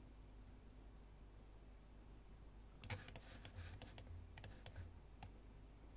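Faint clicking of a computer mouse and keys: about a dozen light clicks in a quick cluster starting about three seconds in, after a near-silent start.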